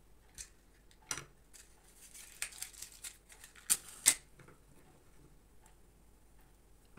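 A wooden match struck on the side of a matchbox: a few scratchy strokes a little after two seconds, then two sharp strikes about four seconds in as it catches. Light clicks of the matchbox being handled before that.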